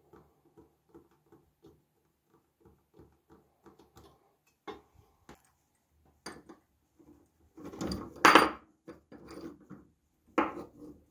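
Soft metallic clicks, about three a second, as a pin is worked through the hinge of an engraved metal dish with a small hand tool. Then a steel bench vise and small metal parts are handled, with a loud metallic clatter lasting about a second around eight seconds in, and another shorter one near the end.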